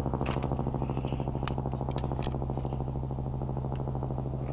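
An engine running steadily at idle: a low, even hum with a fast regular pulse. A few light clicks sound over it.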